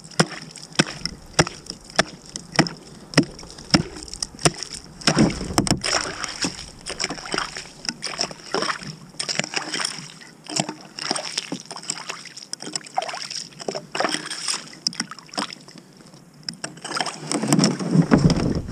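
A hatchet chopping a hole through thin lake ice, about 2 inches thick: repeated sharp strikes, a little under two a second at first, each cracking the ice and splashing into the slushy water and broken shards. A louder, deeper burst comes near the end.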